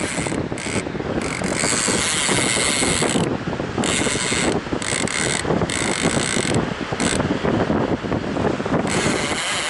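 Surf fishing reel's drag screaming as a fish runs with the bait and pulls line off. It comes in repeated spells, from a fraction of a second to about two seconds long, stopping and starting again.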